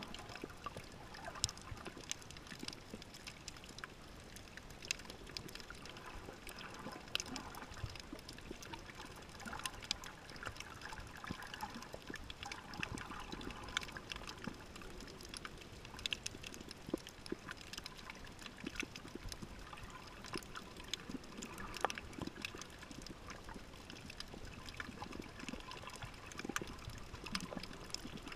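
Underwater water noise, a steady gurgling swish, with many scattered sharp clicks and crackles.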